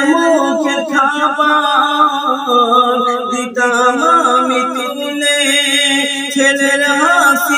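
A man sings a Bengali gojol, an Islamic devotional song, in a long ornamented melodic line with many slides and turns. A steady low held note sounds beneath the voice throughout.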